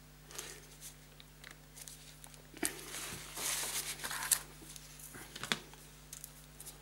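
Paper tissue rustling and crumpling as gloved hands wipe an epoxy syringe clean, loudest about midway, with a few sharp clicks and taps of the syringe and tools being handled and set down on a rubber work mat.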